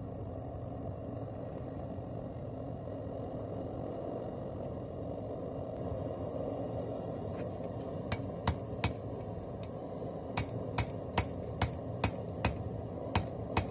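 Hand hammer striking a hot, flux-coated damascus billet of stacked bandsaw blade and pallet strap on a 55 lb anvil, setting the forge weld. There are three quick blows about eight seconds in, then a run of about eight more, a little over two a second, over a steady low rush.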